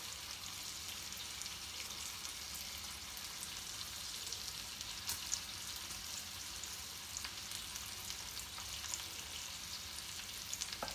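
Steady sizzling hiss with scattered small crackles, like food frying in a pan.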